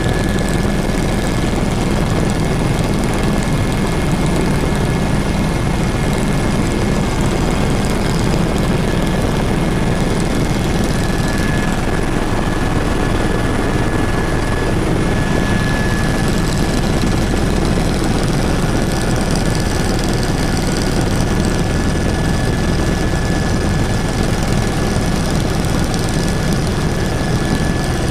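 Helicopter rotor and turbine engine running steadily in level flight, heard from inside the cabin: a constant heavy drone with a thin high whine running through it.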